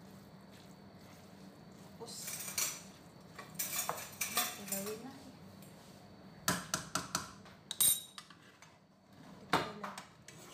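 Metal fork and spoon scraping and clinking against a frying pan as spaghetti is tossed and stirred, in short bouts with a few sharp clinks in the second half.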